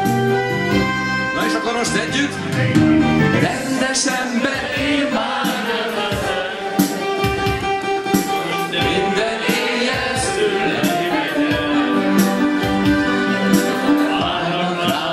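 Live wedding band playing dance music with a steady beat.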